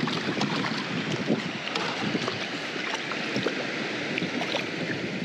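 A hooked fish thrashing and splashing at the water's surface, a continuous run of quick small splashes.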